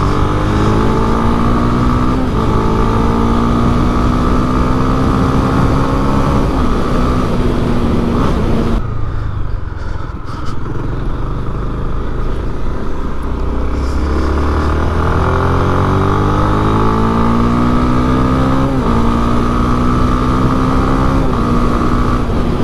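Single-cylinder Honda Twister motorcycle engine being ridden, accelerating up through the gears with a drop in pitch at each shift. About nine seconds in it eases off the throttle, then pulls away and climbs through the gears again.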